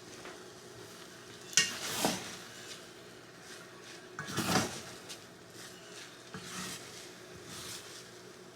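A spoon stirring and scraping couscous in a cooking pot: a few short scrapes and knocks, the loudest about four and a half seconds in.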